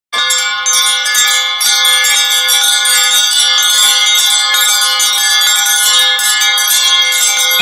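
Hindu temple bells ringing continuously: a dense clangour of overlapping metallic bell tones, struck over and over with no pause. It starts abruptly and keeps an even level.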